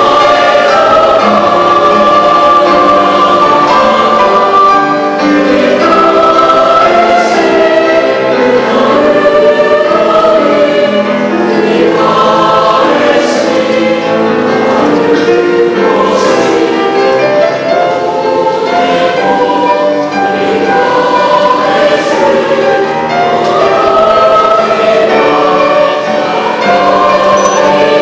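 Mixed three-part choir of young voices singing sustained, legato lines in harmony, with piano accompaniment.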